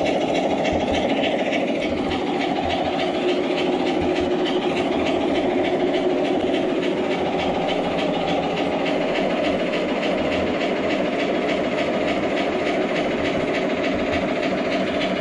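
G-scale model train running on its track, heard from aboard the moving train: a steady running noise of wheels and motor with rapid, even clicking over the rails.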